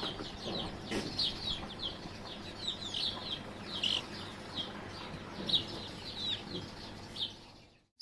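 Several young domestic chicks peeping: a steady stream of short, high, downward-sliding peeps, often overlapping. The sound fades out just before the end.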